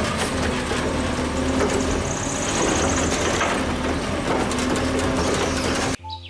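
Garbage truck's diesel engine running steadily while its automated side-loader arm lifts a wheeled trash cart, with a high whine for about a second and a half near the middle. The sound cuts off suddenly near the end.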